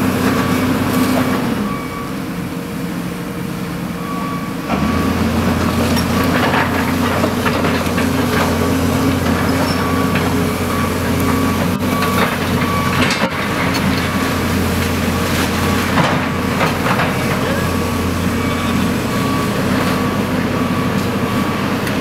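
Caterpillar excavator's diesel engine running, its low drone stepping up louder about five seconds in as the machine works, with scattered cracks and knocks of splintering wood and demolition debris.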